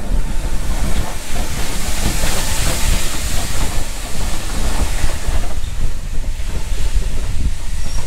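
BR Standard Class 4 tank steam locomotive 80104 moving away along the adjacent track with a loud hiss of steam that swells for a few seconds and then eases, over a steady low rumble.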